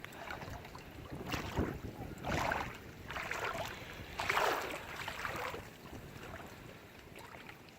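Legs wading through knee-deep floodwater, the water sloshing and splashing in surges about a second apart, loudest a little past the middle.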